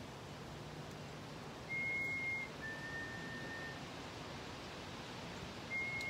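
A person whistling a two-note call to draw birds in: a clear high note, then a slightly lower, longer note, the pattern of a black-capped chickadee's "fee-bee" song. A second call begins near the end.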